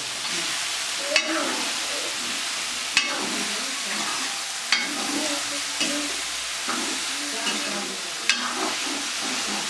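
Vegetables frying in a pan with a steady sizzle while being stirred. The stirring spoon knocks sharply against the pan four times.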